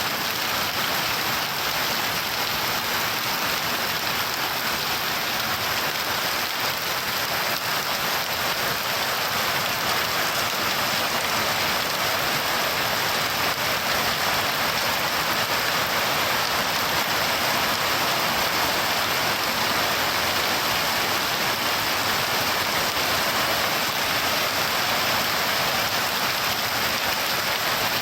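Steady rain falling, an even, dense hiss without let-up.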